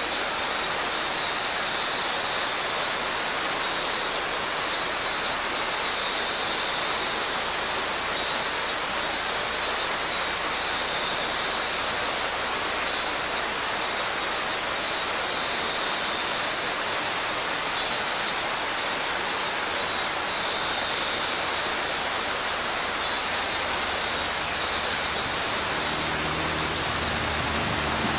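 Mountain stream rushing steadily, with a minminzemi cicada calling in pulsing phrases that swell every four to five seconds. Near the end a motorbike engine begins to be heard approaching.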